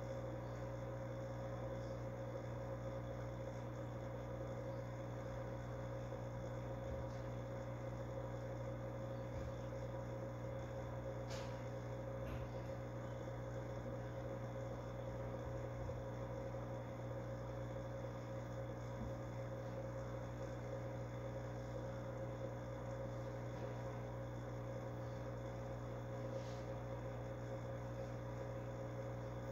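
Steady electrical hum of running aquarium equipment, the tank's pump or filter motor, holding one even pitch throughout, with a faint click about eleven seconds in.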